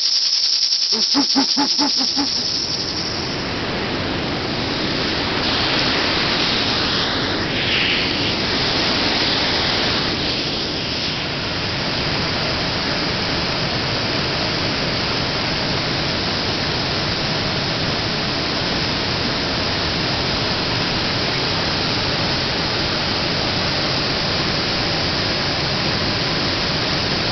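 Water pouring over a weir into a churning pool: a steady, even rush that holds unchanged. A short run of quick clicks comes just before it sets in.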